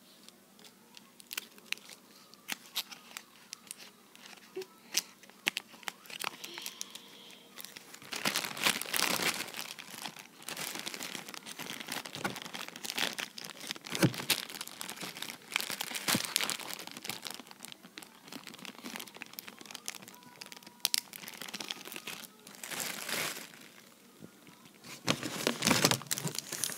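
Plastic bag and candy wrappers crinkling as they are handled: a few light scattered ticks at first, then denser crinkling from about a third of the way in, with a loud burst near the end.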